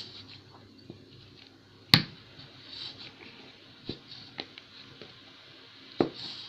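A near-empty plastic glue bottle being handled while someone tries to get more glue out of it: soft rustling with a few sharp knocks, the loudest about two seconds in and smaller ones near the middle and end.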